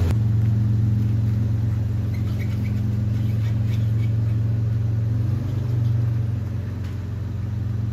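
Toyota 4Runner's 3.4-litre 5VZ-FE V6 idling steadily as the front wheels are turned toward full lock, its note shifting slightly about five seconds in.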